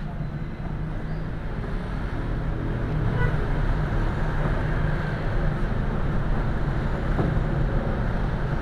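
Steady low rumble of road traffic, a motor vehicle engine running, growing a little louder about three seconds in.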